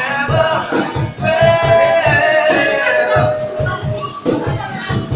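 A street band plays an acoustic pop ballad cover, with a sung vocal line over a pulsing bass and a bright percussion hit about once a second.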